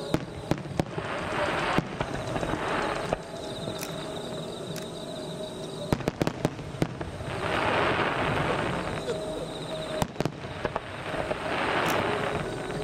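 Aerial fireworks shells bursting in a display heard from a distance. Sharp bangs come in clusters near the start, about six seconds in and about ten seconds in, with swells of rushing noise between them.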